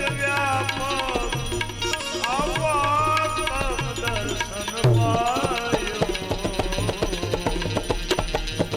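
Devotional bhajan music: tabla playing a busy rhythm under a melody line that slides and bends in pitch, over a held low drone.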